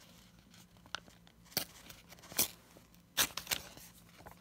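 A paper business reply envelope torn by hand: several short, quiet rips as the postage-paid corner is torn off.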